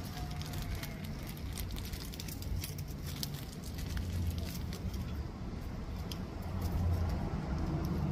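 Clear plastic bag crackling in short irregular crinkles as hands squeeze it, packed with damp peat moss, around a branch and tie it off, over a steady low hum.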